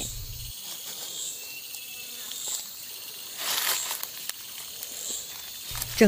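Rainforest insects trilling in a steady high hiss, with a faint chirp recurring about every second and a half. A short burst of rustling noise comes about three and a half seconds in.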